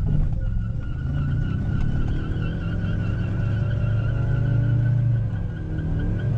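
Ford F-150 pickup's engine revving up to high rpm and held there during a burnout, its wheels spinning, heard from inside the cab. A steady high whine runs over the engine, which dips briefly near the end.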